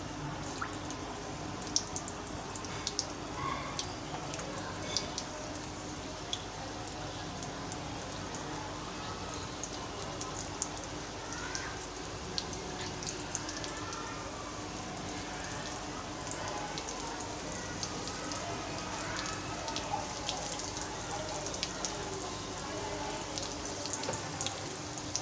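Samosas deep-frying in hot oil in a metal pan: steady sizzling and bubbling with frequent small crackles and pops, the pastry still raw and just put in.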